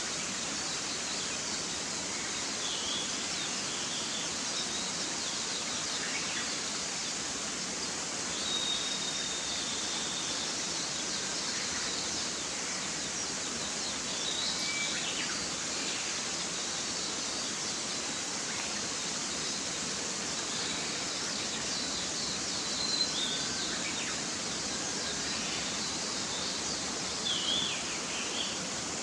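Mountain stream rushing steadily, with songbirds chirping now and then over it, including one held whistle about nine seconds in.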